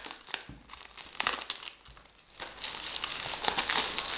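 Plastic shrink wrap crinkling and crackling as it is peeled off a DVD slipcase, in two spells with a quieter moment around the middle.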